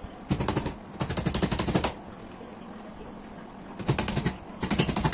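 Hammer tapping small nails through the fibreboard back panel of an IKEA GERSBY bookcase, in four quick runs of rapid blows.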